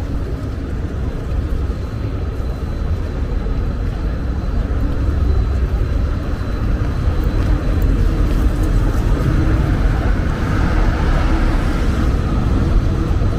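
City street traffic: a steady vehicle rumble that grows louder over the second half as a vehicle approaches.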